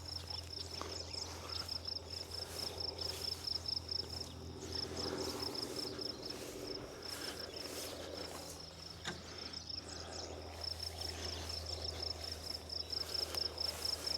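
An insect, cricket-like, chirping in a fast, even series of high-pitched pulses that runs on without a break, over a faint low steady hum.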